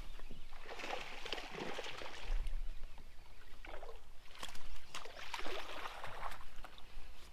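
Water splashing in two rough bursts, about a second in and again around four and a half seconds in, as a small bass hits a topwater frog lure and is fought to the boat.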